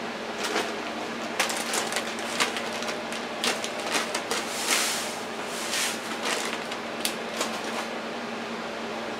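A foil-lined bag of panko breadcrumbs being handled and poured out, crinkling and rustling in short crackly bursts, over a steady hum.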